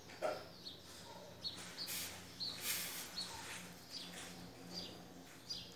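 Faint, sparse bird chirps, with a few short soft rustling sounds around the second and third seconds.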